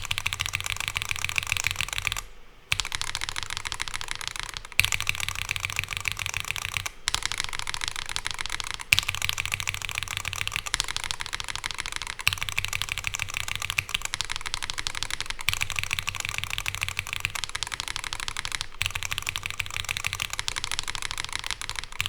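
Rapid, continuous keypresses on a Monsgeek M1 V5 TMR keyboard, comparing Geonworks Raw HE magnetic switches on the D and F keys with Cherry MX Black Hyperglide mechanical switches on the H and J keys, the clacking changing character every few seconds. There is a brief pause about two seconds in.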